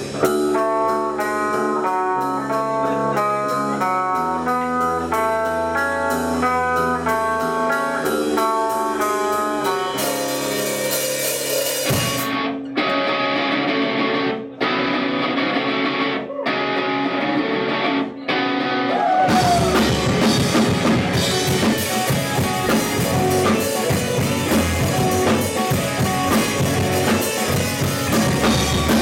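Post-rock band playing live on electric guitars, bass and drums. Clean, picked guitar notes step over drums for the first ten seconds, a sparser passage follows with several brief stops, and about nineteen seconds in the full band comes in dense and loud with distorted guitars.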